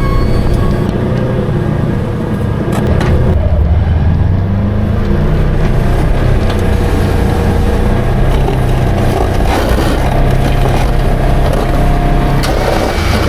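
Polaris Ranger XP 1000 UTV's twin-cylinder engine running under load, its pitch rising and falling every few seconds as it plows through heavy snow.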